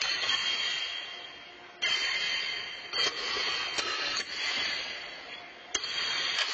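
Pitched horseshoes striking steel stakes: several sharp metal clangs, one every second or two, each ringing and echoing for about a second.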